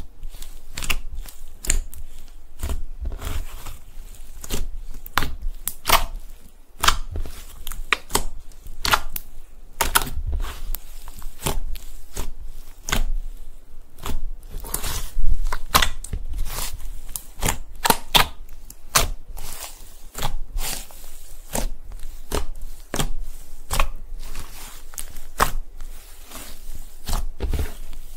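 Slime being squished by hand: fingers pressing into and pulling out of soft, glossy slime make an irregular run of sticky pops and clicks, several a second.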